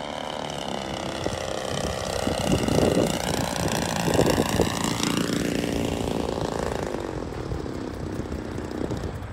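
Radio-controlled model airplane's engine running in flight, its pitch wavering and shifting as it comes around. It is loudest a few seconds in, with some low rumbling, then fades away.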